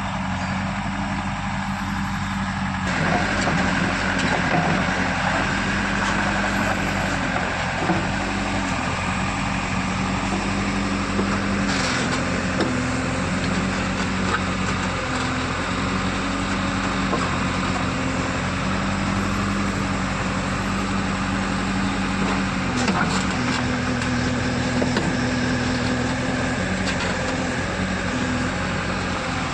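JCB 3DX backhoe loader's diesel engine running steadily while working, its note stepping up and down a few times, first about three seconds in.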